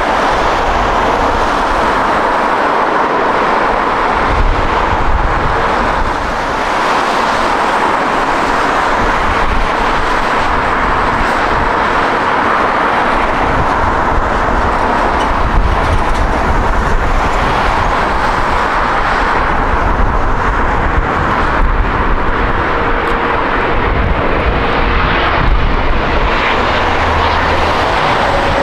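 Jet airliner engines running loud and steady at close range, a dense roar centred in the mid range. A low rumble swells and fades a few times.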